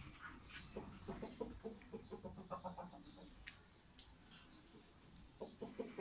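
Domestic hen clucking in two runs of short, quick notes, the first about a second in and a shorter one near the end, with a few sharp clicks between them.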